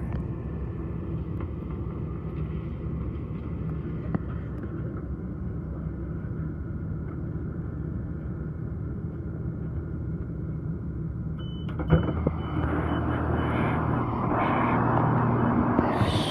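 Low, steady rumble of a Class 170 Turbostar diesel multiple unit heard from inside the carriage as it draws into and stands at the platform. About 12 seconds in there is a click and a short run of high beeps, the door signal. The sound then gets louder and more open as the doors open.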